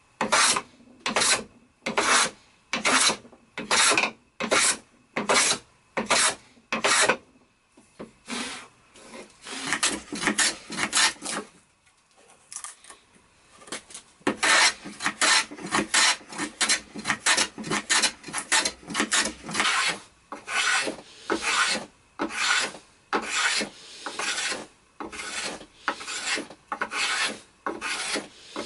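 Hand plane taking shavings off a small board held in a bench vise: short, even push strokes at about two a second, a pause of a couple of seconds about halfway through, then quicker strokes.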